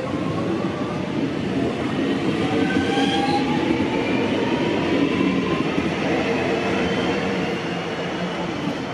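Electric suburban train pulling away from the platform, its traction motors whining in several tones that rise slowly in pitch as it gathers speed, over a steady rumble of wheels on rail.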